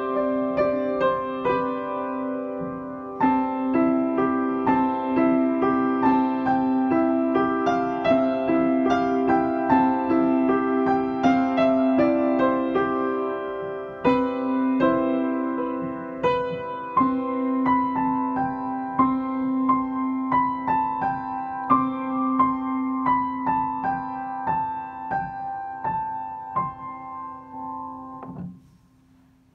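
Piano music: a steady stream of single notes over a held low note, stopping shortly before the end.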